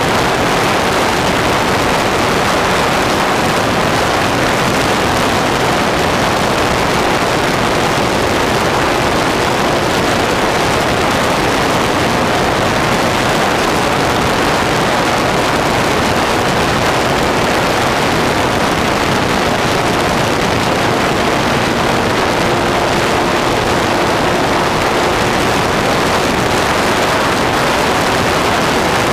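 Durafly T-28 electric RC model plane in flight heard from on board: a steady rush of airflow and propeller noise, with faint steady tones from the electric motor and propeller.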